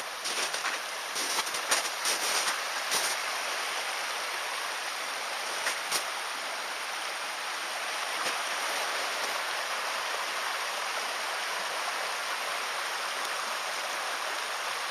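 Flowing stream water rushing steadily, with a few sharp clicks in the first three seconds and one more about six seconds in.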